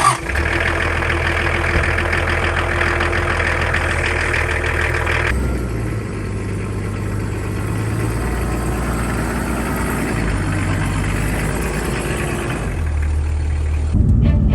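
Land Cruiser 70's engine running steadily, a low rumble with an even hum, starting suddenly and shifting in character about five seconds in and again near the end.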